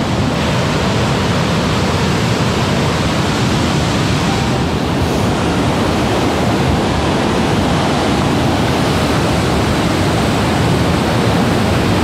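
A whitewater river rushing over boulders in rapids: a loud, steady noise of water with no pauses.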